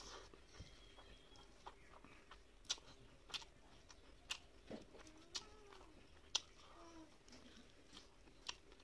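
Close-up eating sounds from mixing rice and fish curry by hand on a steel plate and chewing: sharp, wet clicks and smacks about once a second. A few faint, short rising-and-falling calls sound in the background.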